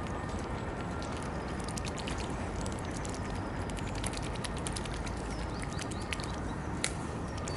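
Mute swans and mallards dabbling at floating feed pellets on the water's surface: many quick, irregular clicks and snaps of bills at the water, over a steady low rumble.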